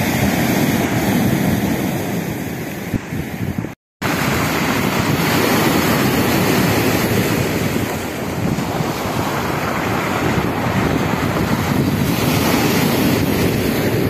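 Sea surf breaking and washing over a pebble beach, rising and falling in slow swells, with wind buffeting the microphone. The sound cuts out for a moment about four seconds in.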